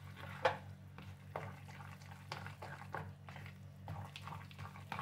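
A steel spoon stirs thick semolina batter with chopped vegetables in a plastic bowl, making soft scraping and clicking strokes about twice a second over a steady low hum.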